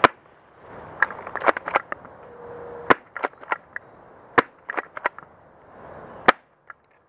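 Spring-powered airsoft pump shotguns firing and being racked: a string of sharp cracks and clacks, the four loudest spaced about one and a half seconds apart, with smaller clicks between. Brush rustles under them.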